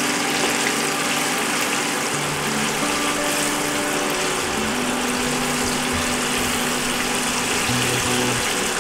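Flour-coated tilapia pieces deep-frying in a saucepan of hot oil: a steady, dense sizzle.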